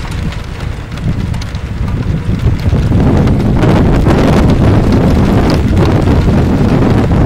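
Storm wind buffeting the microphone with a loud rumble, over the hiss of heavy rain; it grows louder about three seconds in.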